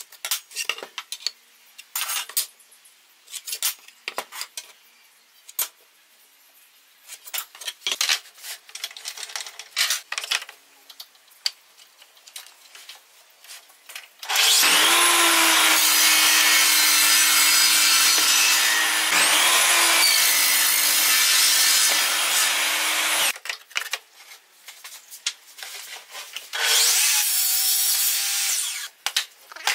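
Pencil scratching short marks along a speed square on a board. Then a table saw blade cutting wood on a crosscut sled: two long cuts back to back, with a brief dip between them about halfway through, and a shorter cut near the end.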